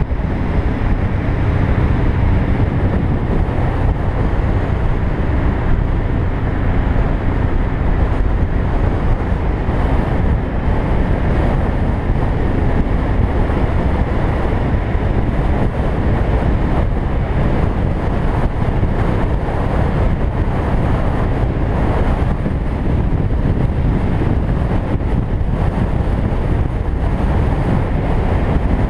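Steady wind rush on a motorcycle camera's microphone while riding at road speed, with the motorcycle's engine and tyre noise underneath.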